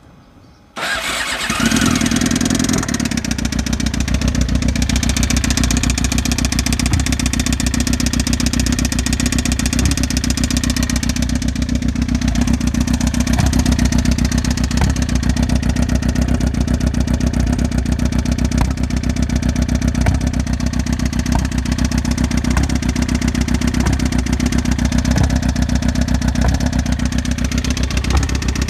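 2007 Suzuki GSX-R600's inline-four engine starting just under a second in, then running steadily at idle until it cuts off at the end, with an abnormal loud ticking and a gurgling exhaust whose cause is unknown.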